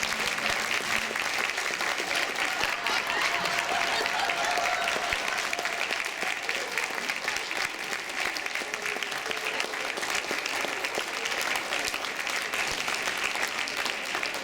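Audience applauding steadily, a dense run of many hands clapping, with a few voices faintly mixed in.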